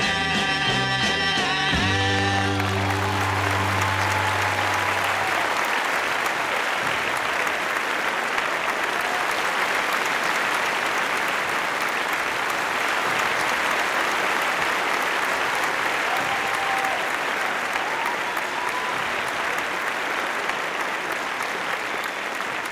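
Audience applauding steadily, tapering a little near the end. A recorded pop song ends on a held chord in the first few seconds as the clapping begins.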